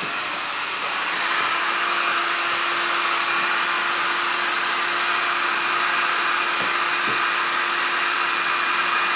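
Handheld hair dryer blowing steadily: an even rushing of air with a steady motor hum. Two faint knocks come about two-thirds of the way through.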